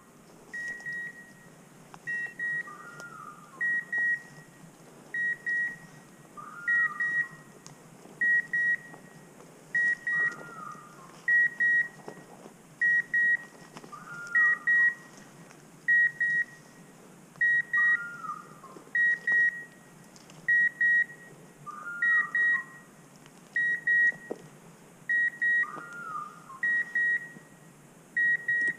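Electronic beeper collars on hunting dogs: a high short double beep repeating about every one and a half seconds, with a lower, falling hawk-scream-like chirp repeating about every four seconds.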